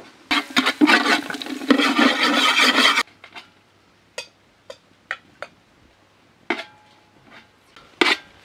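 Knife cutting through red onion on a wooden chopping board, a dense crunching and rasping that stops abruptly about three seconds in. After it, a few scattered light clinks and taps.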